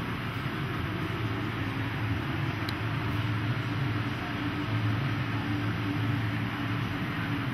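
Steady machine noise: a low hum under an even rushing hiss.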